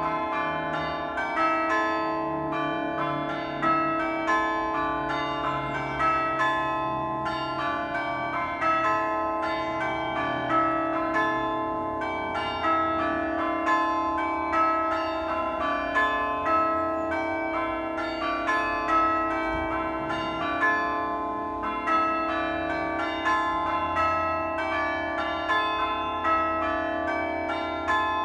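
Church bells ringing continuously, struck one after another in quick succession so that their ringing tones overlap.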